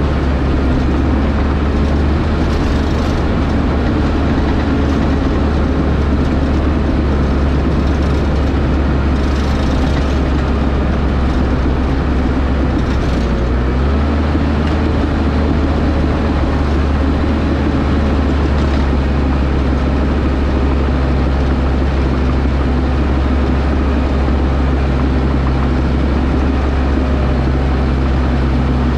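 Excavator's diesel engine running steadily under digging and loading work, a deep even hum.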